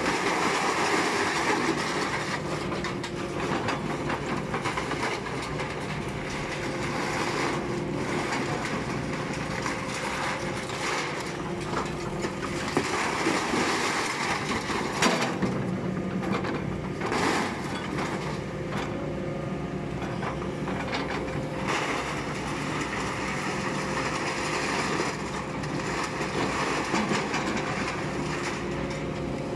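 A Kobelco excavator's diesel engine runs steadily while loads of scrap metal, cans and sheet, clatter and crash as they drop from its lifting magnet into the steel box of a hydraulic scrap press, in several bursts with a few sharp knocks.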